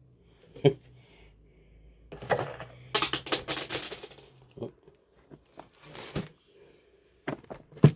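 Plastic bottom cover of a laptop being pried off, its snap clips clicking and crackling in a dense run about two to four seconds in, with scattered single clicks and knocks of plastic being handled.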